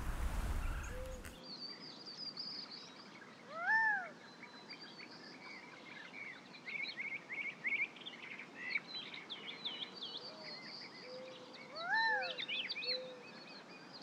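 Small birds twittering and chirping, with two louder mewing calls that rise and fall, about eight seconds apart.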